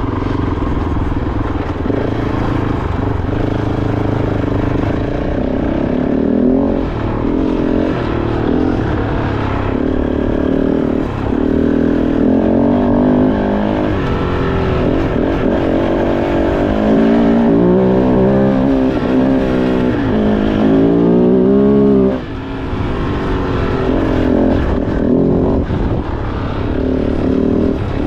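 Kove 450 Rally's single-cylinder four-stroke engine under way on a trail ride, its pitch rising and falling as the throttle is worked through the gears. The engine note drops briefly about three-quarters of the way through, as the throttle is closed, then picks up again.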